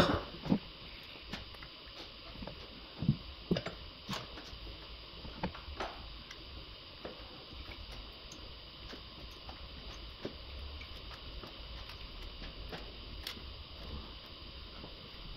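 Scattered clicks, taps and knocks of hands and tools working on diesel engine-bay parts (intake pipework, hoses and connectors) during intake manifold removal, busiest in the first six seconds, over a faint steady high hum.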